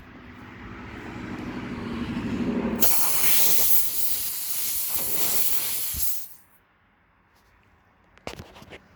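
Compressed air hissing out of a car tyre's puncture as a plug is forced into the hole. It builds with a low buzz, turns into a loud, full hiss about three seconds in, and cuts off sharply about six seconds in.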